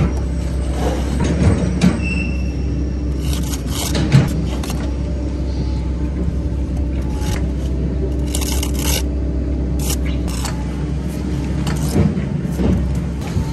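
Steady low engine rumble of site machinery running, with scrapes of a steel trowel on mortar and short knocks of bricks being set into the bed.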